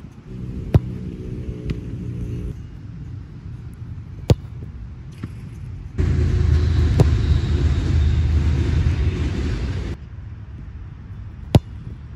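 A soccer ball kicked hard four times, a sharp thud every few seconds, over a steady low rumble that swells for a few seconds in the middle.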